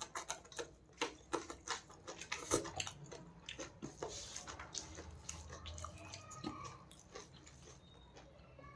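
Close-miked chewing of fish and rice: wet mouth clicks and smacks, coming thick and fast for the first few seconds and then thinning out.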